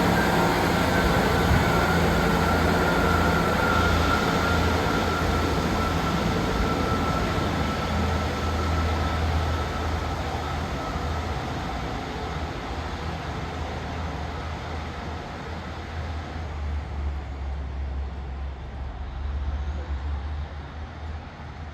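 A train moving through the station, a rushing rail noise over a steady low drone, gradually fading as the train draws away.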